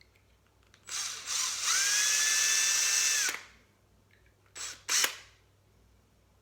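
Small power drill boring out the rivets of a die-cast toy car's pot-metal base: the motor whine rises as it spins up and holds steady for about two seconds, then stops, followed by two short bursts near the end.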